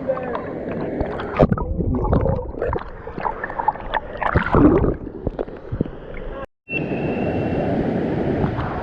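Splashing and gurgling water close to the microphone as a swimmer moves in under a waterfall. After a short dropout, a steady rush of falling water takes over.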